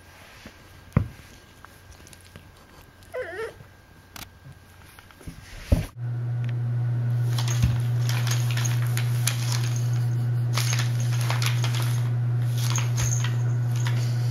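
A short wavering cat call about three seconds in. From about six seconds a steady low hum sets in, and over it comes scattered paper crackling as the cat rolls on its back on a paper bag.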